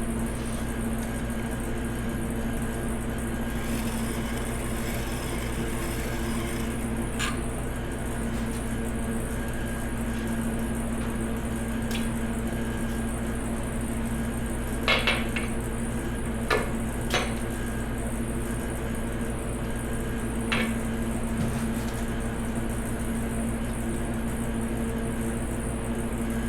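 Light metallic clinks of a piston ring and small tools being handled, about six of them spread out with a quick cluster past the middle, over a steady electric motor hum from the ring-filing grinder.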